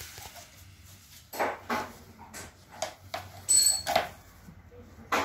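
Laminate floor planks being handled on foam underlay over a marble floor: a string of short knocks and rubbing sounds, a brief high squeak about halfway through and a sharp click near the end.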